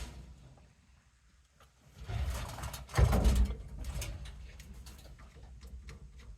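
Parts being fitted by hand on a truck's steering column: a scraping slide about two seconds in, a heavier clunk about three seconds in, then small clicks and rattles.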